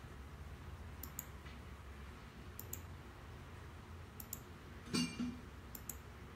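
Computer mouse clicking in quick pairs about every one and a half seconds, stepping through photos on screen, over a low steady room hum. A short hum-like sound comes about five seconds in.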